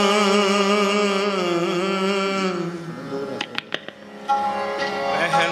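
Gurbani kirtan in Raag Basant: a man sings a drawn-out, wavering line over a steady harmonium. The voice fades out about halfway through, and after a lull with a few sharp taps the harmonium comes back in about a second later.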